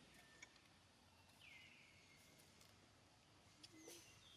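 Near silence: faint forest ambience. A distant bird gives a whistled call that slides down and then holds, with a few faint clicks.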